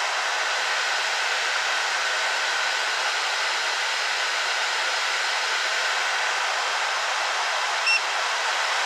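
AIRSEE GD3 nail dust collector's fan running at one of its three speeds, a steady rushing of air. A short electronic beep sounds near the end.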